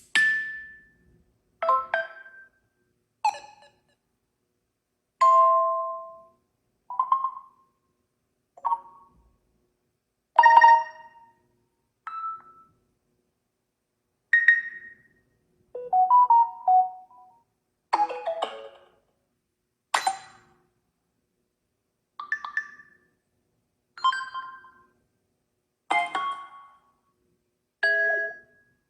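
A run of Samsung Galaxy A15/A25 stock notification sounds played one after another: about sixteen short chimes and blips of different pitches, each under a second, with short silences between.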